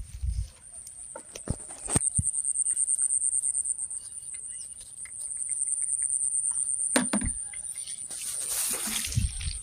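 Insects, crickets by the sound, chirring in a steady, rapidly pulsing high note, with a few sharp knocks and a short rushing noise near the end.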